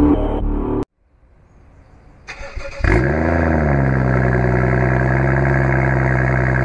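Intro music cuts off under a second in; after a short pause, a BMW M235i's turbocharged straight-six is cranked and starts from cold, its revs flaring up and falling back, then settling into a steady idle. It runs through a Tuningwerk rear silencer with the exhaust flap valve closed.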